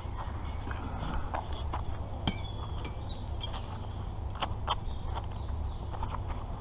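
Irregular sharp clicks and clinks of a magnet-fishing magnet and a rusty metal find being handled, the sharpest about two seconds in and a pair near four and a half seconds, over a steady low rumble.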